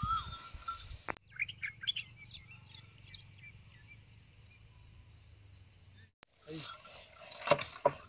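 Birds chirping: a run of short, quick chirps over a low steady hum. About six seconds in, this gives way to louder field sound with a few sharp knocks.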